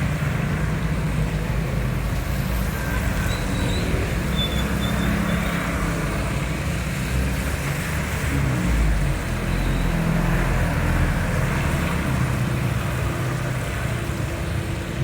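Road traffic in heavy rain: vehicle engines running and tyres hissing on a wet road under a steady rain hiss.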